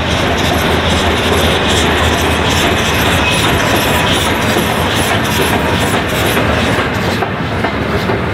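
Peppercorn A1 Pacific steam locomotive 60163 Tornado running past close by at speed, loud, with a quick steady beat over the clatter of its wheels on the rails.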